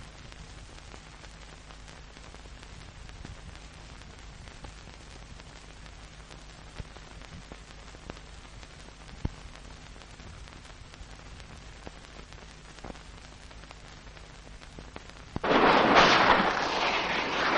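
Faint hiss and low hum of an old film soundtrack with a few scattered clicks; about fifteen seconds in, a sudden loud rough scraping rush of skis cutting across snow begins and carries on.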